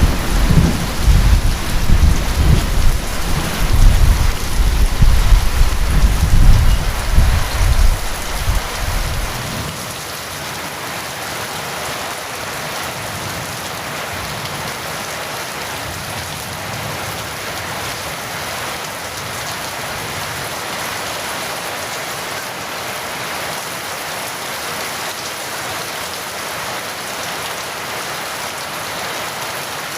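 Steady heavy rain with a long rolling peal of thunder. The thunder dies away about a third of the way in, leaving only the even hiss of the rain.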